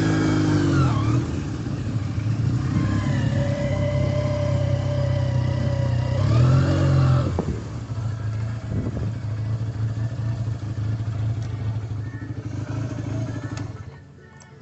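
Motorcycle engine running and revved twice, at the start and about six and a half seconds in, then running more quietly and cutting off near the end.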